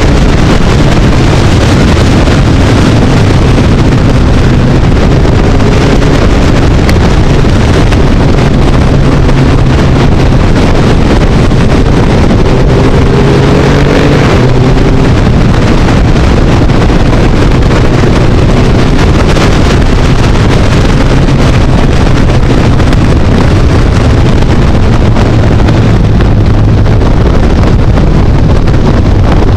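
Motorcycle engine running at road speed, its note rising and falling with the throttle through the bends, with heavy wind rushing over the microphone.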